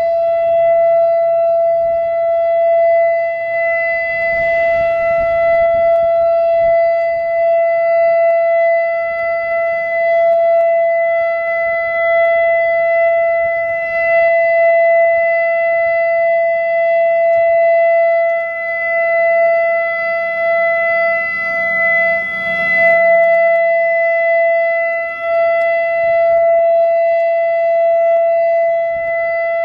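ASC E-Class EC4 outdoor warning siren sounding a steady single-pitch alert tone for a tornado siren test, its loudness rising and falling slightly.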